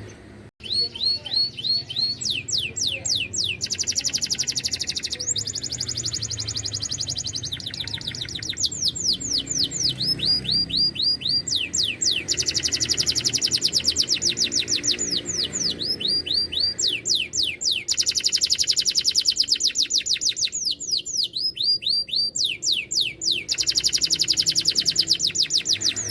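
Domestic canary in full song: a long run of fast trills, each made of quickly repeated downward-sweeping notes, changing from one trill to the next with only brief pauses.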